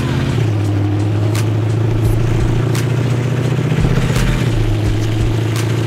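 A vehicle engine running steadily at a constant speed, with a sharp click about every second and a half.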